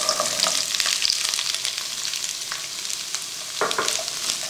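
Chopped red onions sizzling and crackling in hot sesame oil in a pan, a steady high hiss dotted with small pops, with a spatula stirring them briefly near the end.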